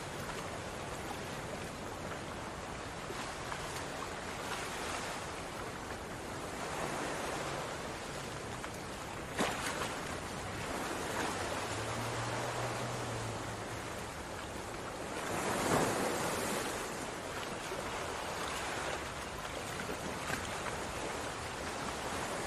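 Chicken and turnip curry boiling hard in an open pot, a steady bubbling as it is cooked down to thicken. There is a single sharp click about nine seconds in and a louder surge of bubbling around sixteen seconds.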